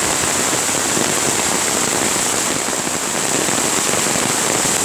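Loud, steady rush of a creek in flood after heavy rain, its water running fast and high, possibly with rain falling on top.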